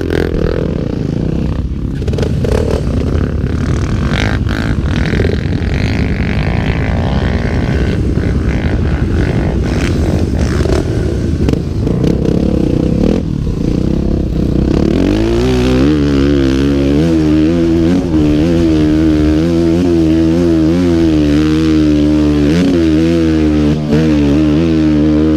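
Trail motorcycle engine running under load over rough ground, with clattering and scraping for the first half. About fifteen seconds in, the engine note turns clear and steady, rising and falling slightly with the throttle.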